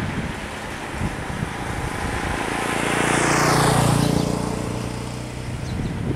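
A motorcycle passing close by: its engine grows louder to a peak about three and a half seconds in, drops in pitch as it goes past, then fades away.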